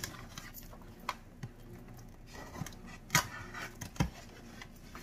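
A new rice cooker and its packaging being handled as it is unboxed: scattered light clicks and rustles, with two sharper knocks past the middle.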